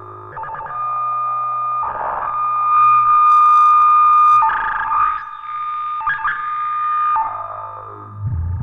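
Behringer Neutron analog synthesizer playing a long held high note over a low bass drone, brightest in the middle. The notes change a few times, and a falling pitch glide comes near the end.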